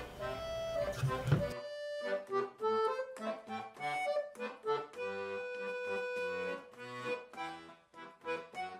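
Accordion music: a melody played over chords, with a short break near the end.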